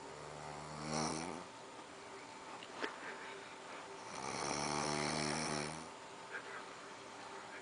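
A sleeper snoring: two long, buzzing snores, the first at the start and the second about four seconds in, with a short click between them.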